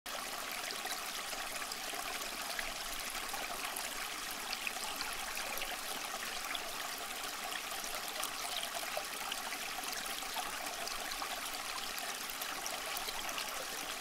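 Water trickling steadily from pot to pot down the tiers of a small tabletop cement waterfall fountain into its basin.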